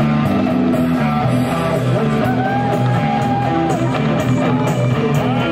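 Rock music with guitar, playing continuously at a steady level, with a melodic line that bends in pitch over the band.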